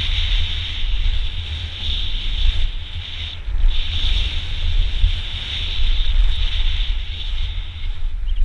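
Wind buffeting the microphone of a camera on a downhill mountain bike ridden fast down a dirt singletrack, a heavy rumble that swells and drops, with the tyres hissing over dirt and loose rock.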